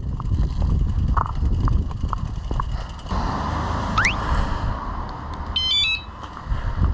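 Noeullim 3.0 bicycle anti-theft alarm sounding its electronic chirps: a quick rising sweep, then a short run of stepped beeps about two seconds later. Underneath are a steady low rumble and a few sharp clicks in the first few seconds.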